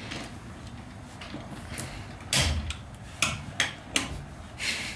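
Socket wrench tightening lug nuts on a steel wheel: a series of sharp metallic clicks and clinks, about six of them, mostly in the second half.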